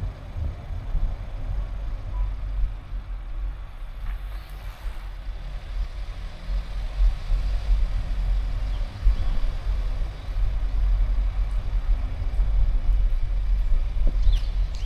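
A car driving: a steady low rumble of road and engine noise that wavers in loudness.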